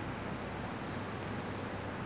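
Steady city background noise at night: an even hiss-like hum with no distinct events.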